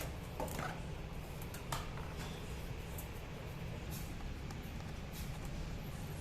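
Scattered light clicks and knocks of plastic scooter fairing panels being handled and fitted onto the chassis, over a steady low hum.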